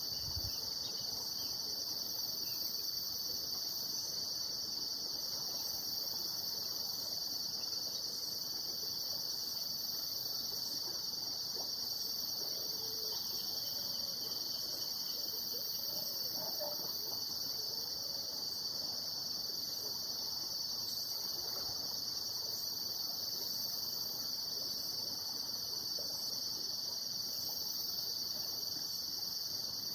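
A steady chorus of insects, crickets or similar, trilling without pause in a high-pitched band with a second, even higher band above it.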